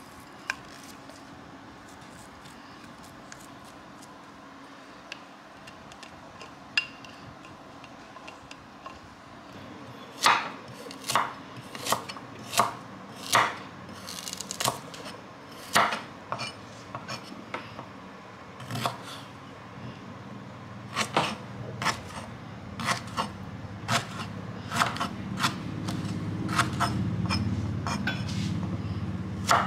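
Kitchen knife cutting fresh turmeric and ginger root into pieces on a wooden chopping block. The blade knocks on the board in separate strokes about once a second, beginning about a third of the way in. A low rumble rises under the knocks near the end.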